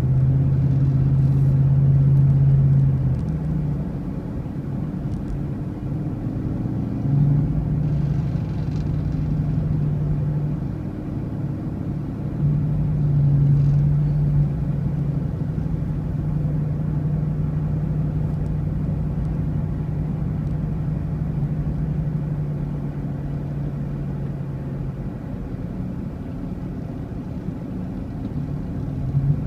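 A motor vehicle's engine running at road speed with a steady low drone. The hum eases off about three seconds in, comes back a few seconds later and eases again near the end, as the throttle changes.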